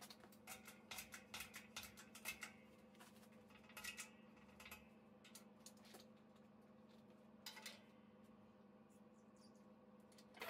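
Near silence: a faint steady hum with scattered light clicks and ticks, most of them in the first couple of seconds.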